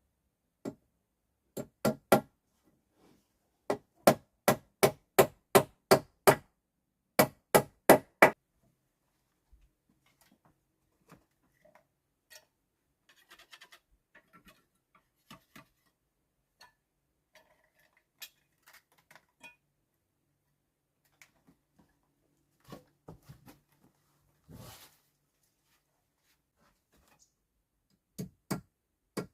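A tool striking wood in runs of quick, ringing blows, about three a second, loudest in the first third. Fainter scattered knocks and clicks follow, and the hard blows start again near the end.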